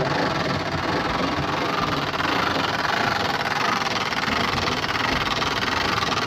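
Hand crank winding the spring motor of a late-1800s coin-operated automatic music machine (a mechanical piano), a steady mechanical clatter as the spring is wound up before the machine plays.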